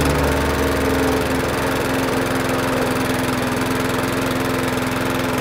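Walk-behind gasoline lawn mower engine running at a steady speed.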